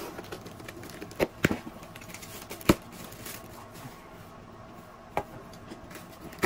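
Packing tape on a cardboard box being slit with a plastic safety box cutter and the cardboard flaps pulled open, with scraping and rustling and a few sharp knocks and taps, the sharpest a little under three seconds in.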